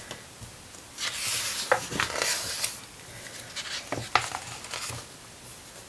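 Pages of a large art book being turned by hand: several bouts of paper rustling and flapping, with a few light taps as the pages fall.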